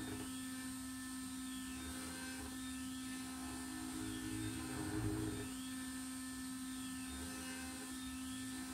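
A CNC router's 2.2 kW ER20 spindle running with a steady whine while a 4 mm two-flute end mill drills holes in aluminium plate. A rising-and-falling motor whine repeats about once a second as the Z axis pecks the tool in and out of the hole.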